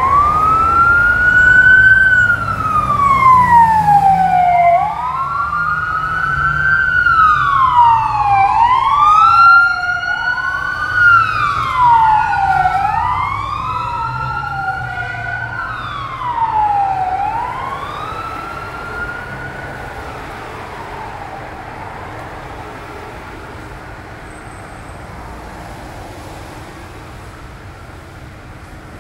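Wailing sirens of passing emergency vehicles, each slowly rising and falling in pitch every few seconds. For a while two sirens wail out of step with each other, then they fade away by about twenty seconds in, leaving steady street traffic noise.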